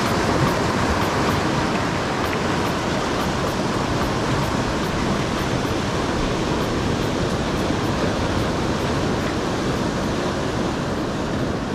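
Sea surf breaking on a reef: a steady, continuous rush of waves.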